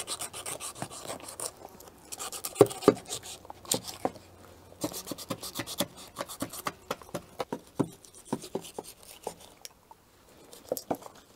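A kitchen knife slicing and scraping through raw stingray flesh and cartilage on a wooden cutting board, in stretches of scraping broken by many short, sharp knocks and clicks of the blade.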